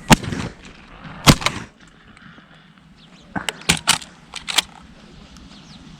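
Two loud shotgun shots about a second apart, fired at a passing dove by two hunters who both miss, followed a couple of seconds later by a few fainter sharp clicks.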